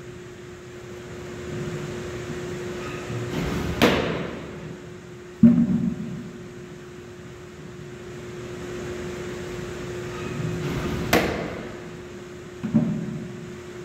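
Baseballs popping into a catcher's mitt twice, about seven seconds apart. Each catch is followed about a second and a half later by a louder, duller thud, over a steady low hum.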